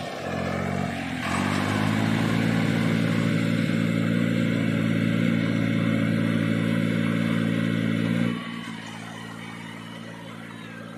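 Diesel tractor engines working flat out in a tug-of-war pull, the nearer orange SAME 45 hp tractor's engine giving a loud, steady drone at full throttle. The drone drops sharply in level about eight seconds in.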